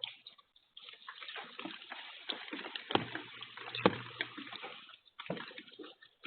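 Heavy rain pattering and splashing, with two sharp knocks about a second apart near the middle.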